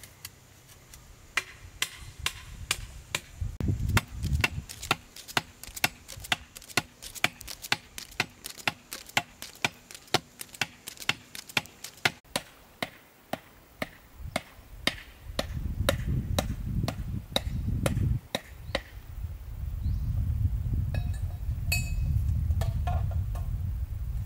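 Repeated chopping: sharp, evenly spaced strikes about two or three a second that slow and stop about three quarters of the way through, with patches of low rumbling noise between and after them.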